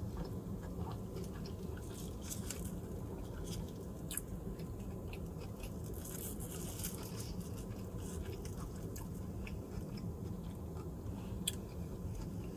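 Close chewing and mouth sounds of someone eating a sushi burrito, with many small wet clicks. A brief rustle of the foil wrapper comes about six seconds in, over a steady low hum.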